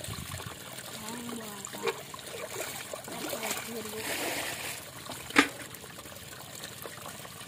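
Shallow water trickling and splashing through a muddy channel, with one sharp click about five seconds in.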